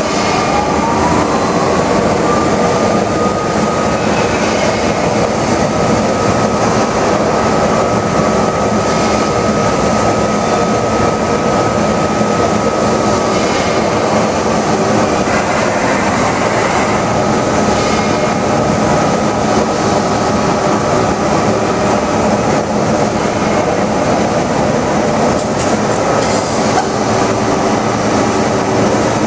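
TOS MCSK 8 vertical turning lathe running its clamping table, a steady loud mechanical drive noise. A whine in the drive rises in pitch over the first few seconds as the table comes up to speed, then holds at one pitch until about halfway through.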